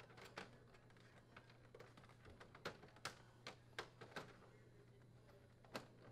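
Faint, scattered clicks and taps of hard plastic as a front-load dryer door's outer glass retainer is turned on its trim ring to lock it into place, with several in quick succession in the middle, over a faint steady low hum.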